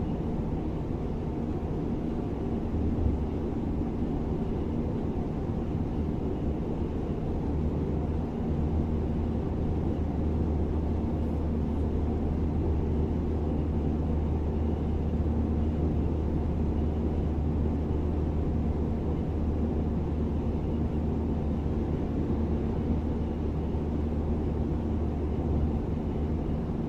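Class 425 electric multiple unit running at a steady speed: a continuous, even rumble with a steady low hum and no change in pitch.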